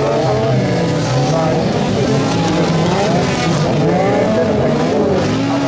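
Several autocross race cars on a dirt track, their engines revving hard at once. The overlapping engine notes rise and fall as the drivers shift and brake through the pack.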